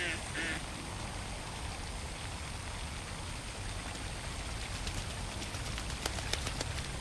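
Ducks on a pond: a duck quacks twice right at the start, then steady rippling water with small splashes and drip-like clicks that come more often near the end.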